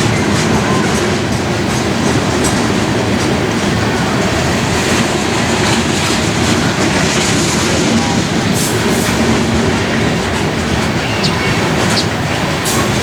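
Coal cars of a freight train rolling past, a steady loud rumble of steel wheels on the rails with clickety-clack over the rail joints. There are a few brief high wheel squeals partway through and near the end.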